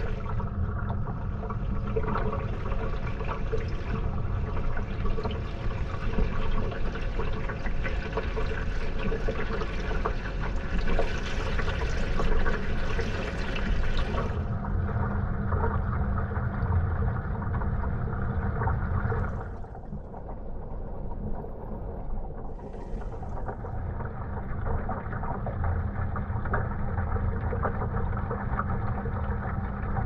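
Wash water sloshing and splashing inside a Gorenje WA 65205 washing machine drum as it tumbles, heard from inside the drum, over a steady low hum. About fourteen seconds in the splashing turns duller, and near twenty seconds it briefly drops away before the tumbling picks up again.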